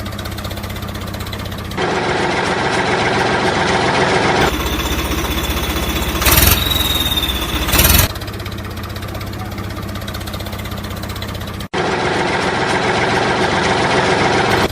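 Vehicle engine idling steadily, in several pieces joined by sudden cuts, with two short louder bursts about six and eight seconds in.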